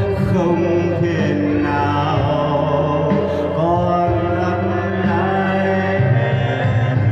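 A man singing over recorded backing music, a held bass line that changes note a few times under his melody.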